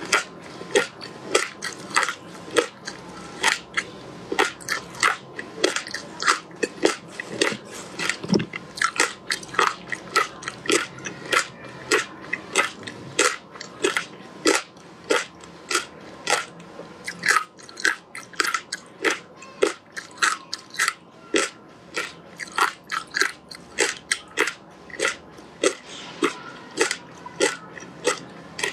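Frozen passion fruit pulp and seeds being bitten and chewed, with sharp crunches of the ice coming about twice a second.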